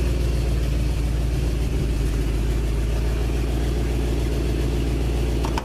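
A 1974 Ford F250's V8 engine idling steadily as it warms up on its first run of the year.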